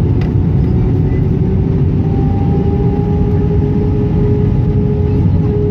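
Airbus A319 cabin noise heard inside the cabin over the wing on approach: the steady rush of air and the drone of its IAE V2500 turbofan engines. A steady hum rises slightly in pitch, and a higher tone joins it about two seconds in.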